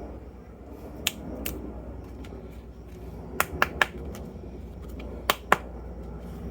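Seven sharp clicks over a low steady hum: two near the start, a quick triple in the middle, and two more near the end.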